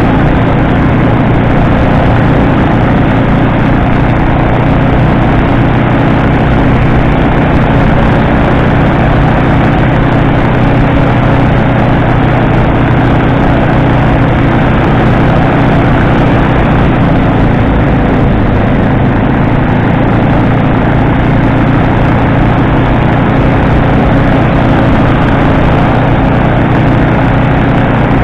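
Fanagoria microlight trike's engine and pusher propeller running steadily in flight, a constant drone at unchanging power.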